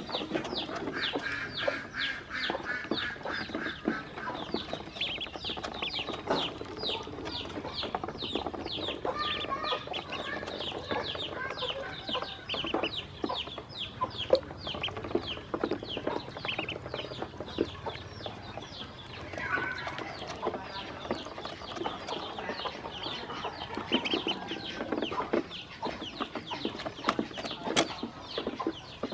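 Ducklings peeping: a constant run of short, high chirps, each falling in pitch, several a second, with soft clicks of bills dabbling in a feeding dish.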